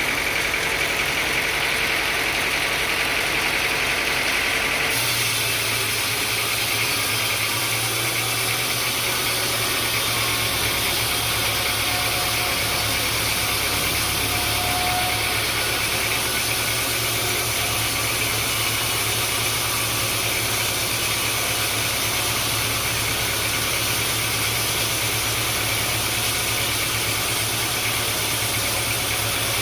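Sawmill machinery engine running steadily, its tone shifting about five seconds in and a deeper hum joining around ten seconds in.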